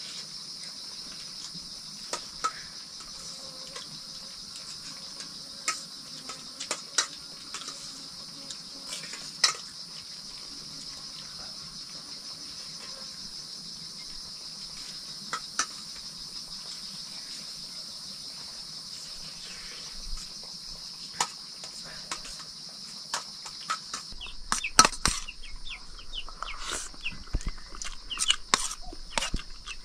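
Steady high-pitched chirring of crickets, with scattered sharp clicks and knocks that grow busier in the last few seconds.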